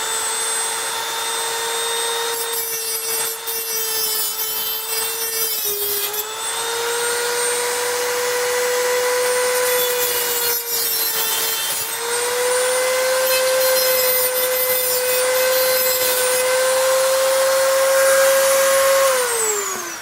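Dremel rotary tool with a grinding wheel running at a steady high whine. Gritty grinding noise comes in spells, and the pitch sags slightly when the wheel bears on the work, as it widens the sides of a slot that was still a little too tight. It spins down near the end.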